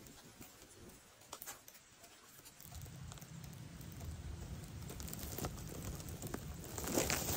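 Faint rustling of grass stems and handling close to the microphone, with a low rumble coming in about three seconds in and louder rustling near the end.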